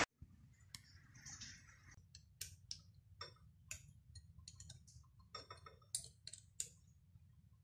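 Faint, irregular clicks and light metallic taps from hands working at the front end-cover of a 7.5 kW three-phase electric motor being taken apart, with a small flurry of clicks a little past the middle.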